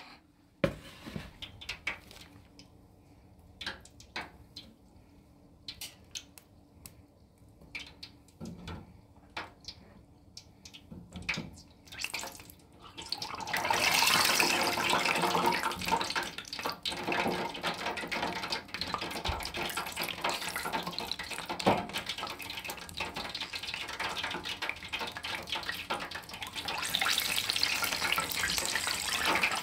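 Scattered light clicks and knocks of metal kitchen utensils handling chicken pieces. About halfway through, a sudden loud sizzling hiss with crackles starts as the chicken goes into the hot oil of an electric deep fryer. The sizzle keeps going and swells again near the end.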